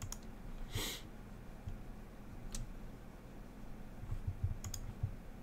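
A few faint computer mouse clicks over a low room hum, with a short hiss about a second in.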